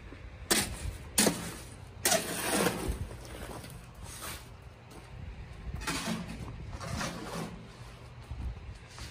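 Footsteps crunching on dry, gravelly soil: a few irregular steps, some short and some drawn out, over a steady low rumble.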